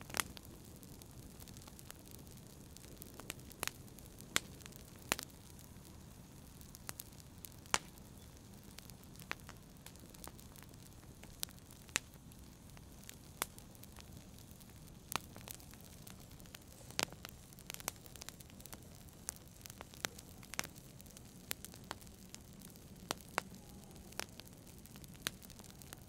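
Wood fire crackling in a fireplace: sharp, irregular pops and snaps, one or two a second, over a low steady rumble of the flames.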